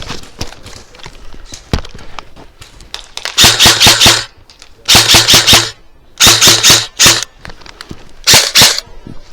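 Airsoft gun firing four quick strings of rapid shots in close succession, the last one shorter, with fainter scattered pops of other fire before them.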